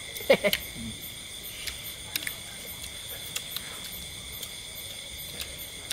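A steady chorus of night insects, cricket-like, holding several constant high trills. A short vocal sound and a few sharp clicks come about half a second in.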